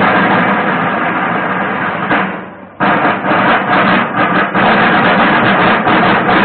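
A drum group beating marching drums: a dense continuous roll that fades away about two seconds in, a short break, then fast rhythmic drumming starts up again.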